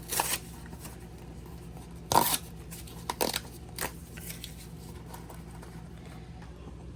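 Packaging of a fridge deodorizer being torn open: a few short tearing and crinkling sounds, the loudest about two seconds in, over a steady low hum.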